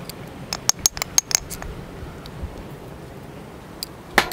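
Metal measuring spoon clinking and scraping against a small spice jar as turmeric is scooped out. There is a quick run of light clicks in the first second and a half and a couple more near the end, over a faint steady hiss.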